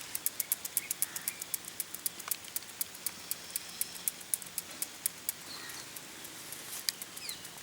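Homemade coconut-shell toy being rotated, giving a rapid tick-tick clicking of about eight ticks a second that slows briefly past the middle and then picks up again. Faint bird chirps are heard behind it.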